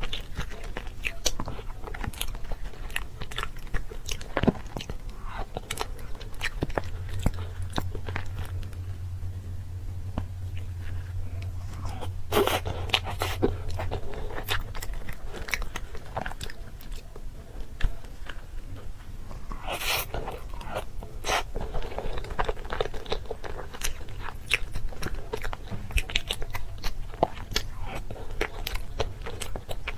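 Close-miked eating: someone biting and chewing crunchy food, with a steady run of sharp crunches and a few louder bites around 12 and 20 seconds in.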